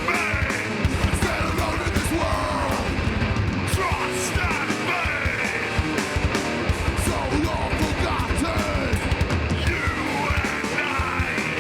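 Live heavy band playing at full volume: fast, pounding drums under guitars and bass, with a vocalist screaming over the music.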